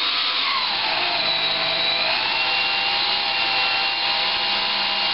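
Brushless electric motor of a ParkZone Super Decathlon park flyer spinning a Master Airscrew 8x6 three-blade propeller at cruise throttle on the bench. Its steady whine drops in pitch over the first two seconds, then holds steady.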